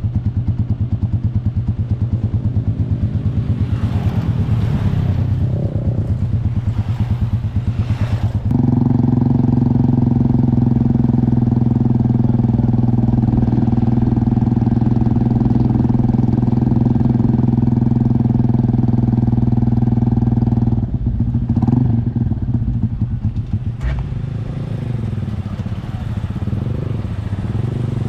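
Motorcycle engine running as the bike is ridden. The pitch varies at first, holds very steady for about twelve seconds at a constant cruise, then drops lower and quieter near the end as the bike eases off.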